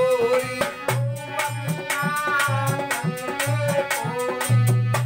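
Instrumental passage of a rasiya folk song: a harmonium plays the tune over held notes while a dholak beats a steady rhythm of deep bass strokes and sharp slaps, with a chimta jingling along.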